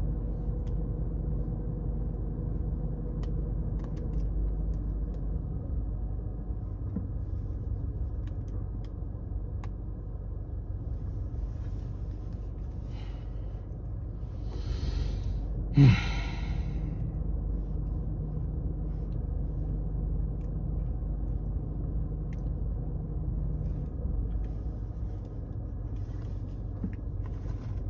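Steady low rumble with faint scattered clicks from handcuffs being worked with a shim. About halfway through comes a loud breath and then a brief grunt.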